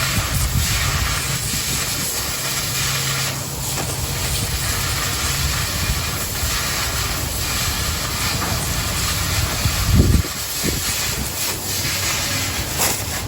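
Oxy-fuel cutting torch hissing steadily as it cuts through quarter-inch steel plate. About ten seconds in there is a single low thump.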